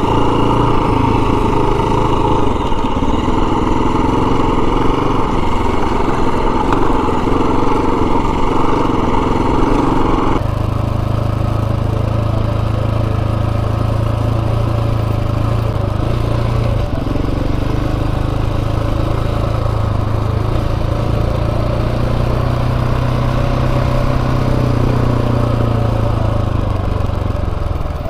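Single-cylinder dual-sport motorcycle engine running steadily while riding, heard from the rider's own bike along with wind and road noise. About ten seconds in, the sound changes abruptly, the upper part dropping away and a low hum coming forward.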